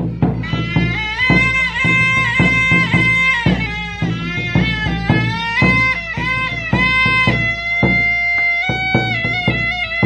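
Traditional Q'eqchi' drum-and-pipe music: a small end-blown pipe plays a high melody of held notes with quick ornaments, over repeated strokes on a large double-headed drum.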